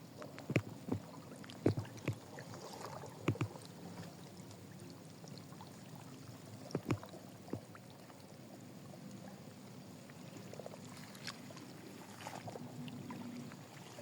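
Scattered light knocks and taps, grouped in the first few seconds and a few more later, over a faint steady background.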